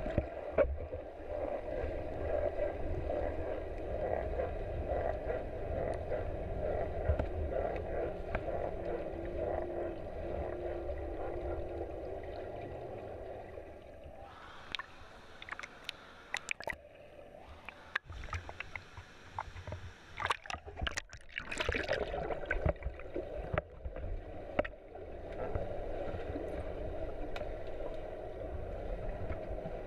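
Muffled underwater swimming-pool noise picked up by a submerged camera: a steady low rumble of water. About halfway through it gives way for several seconds to brighter splashing and bubbling with sharp clicks and knocks, then settles back to the steady rumble.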